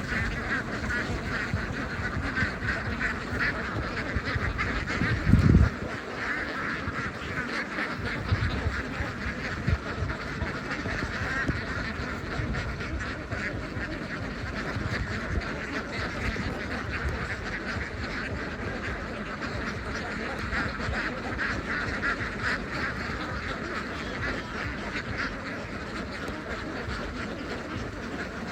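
A large flock of domestic ducks quacking continuously in a dense chorus, with one brief low thump about five seconds in.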